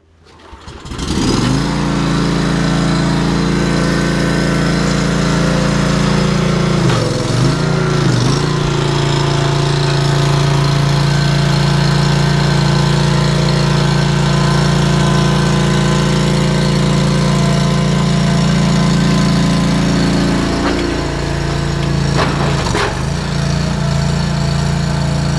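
Engine of a compact digging machine running steadily, fading in over the first second or two; its pitch dips briefly twice, about seven seconds in and again near twenty-two seconds.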